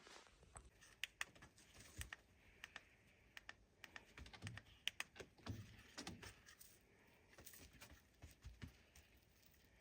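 Faint, irregular light clicks and taps, a few to several a second, over a very quiet room.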